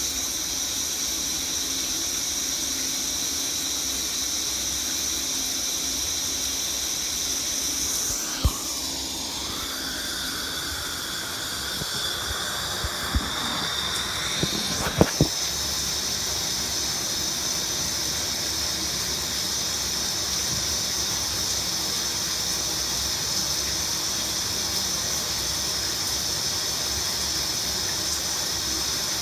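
Shower water running steadily in a continuous hiss. For several seconds in the middle the sound of the spray changes, with a few short knocks, then settles back to the same steady flow.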